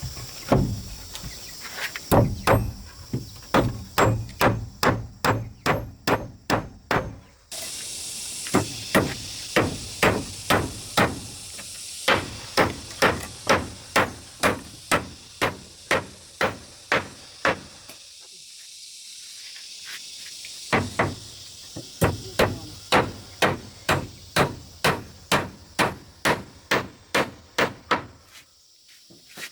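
Repeated sharp blows of a hand tool striking wood, about two a second, in runs broken by short pauses. Insects buzz steadily underneath.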